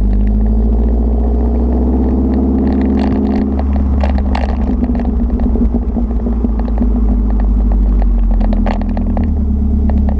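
2011 Mazdaspeed 3's turbocharged 2.3-litre four-cylinder running through a catless Magnaflow exhaust while driving: a deep, steady rumble whose pitch shifts slightly, with scattered sharp clicks.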